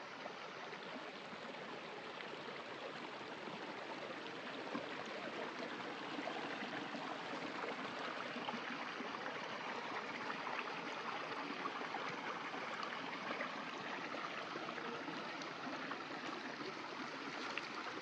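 Stream water running over rocks: a steady rushing hiss that grows a little louder over the first several seconds.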